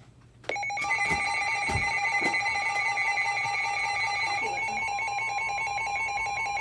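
Several weather-alert radios and EAS decoders sounding their alarms together for a severe thunderstorm warning. Rapid pulsed beeping at several pitches, over steady tones, starts about half a second in; about four seconds in one steady tone gives way to another.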